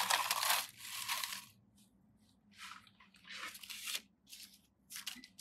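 Slime being squished and worked by hand, giving crunchy, crackly bursts: a longer stretch in the first second and a half, then several shorter ones.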